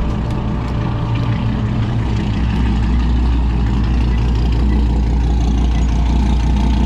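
Noisy truck engine running, a steady low rumble that grows louder about two and a half seconds in.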